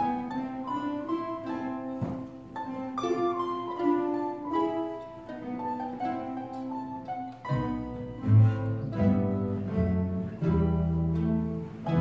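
Mandolin ensemble playing a carol: plucked mandolins carry a melody of quick notes, and low bass notes come in strongly about halfway through.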